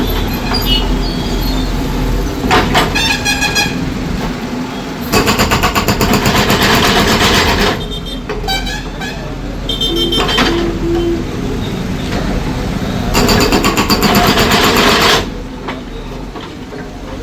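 Concrete-breaking machine over a steady engine rumble, hammering in two bursts of a couple of seconds each, about five seconds in and again about thirteen seconds in.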